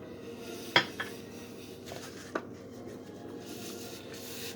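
A spoon scraping and tapping against an ice cream container while scooping. There are three sharp clicks, the loudest about three-quarters of a second in, then a faint scrape near the end, over a faint steady low hum.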